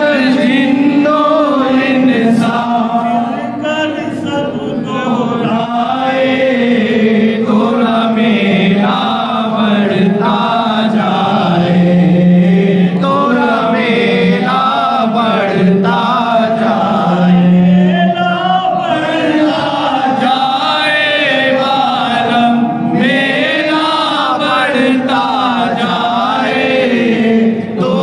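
A group of men chanting a devotional recitation together, one man leading into a handheld microphone, with long held notes.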